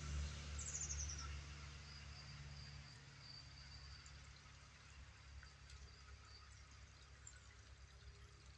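Faint outdoor ambience: a low rumble fades out after about three seconds, and a small bird gives a quick chirping trill about a second in. A thin high note is held for a few seconds.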